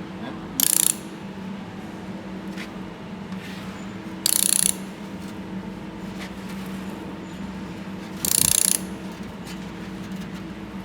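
Laser welder firing on thin steel in three short bursts of about half a second each, roughly four seconds apart, each a loud hissing buzz, over a steady low hum.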